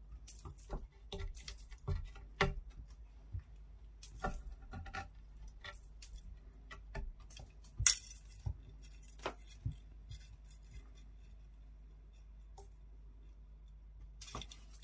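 Small bell on the end of a cat wand toy jingling and clattering in irregular jingles as cats bat at it. It thins out to occasional jingles about ten seconds in.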